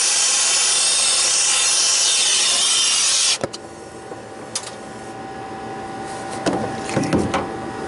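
Brazing torch flame hissing loudly while copper refrigeration lines on a compressor are brazed, then shut off suddenly about three seconds in. After that there is a quieter steady hum with a few clicks and knocks of handling.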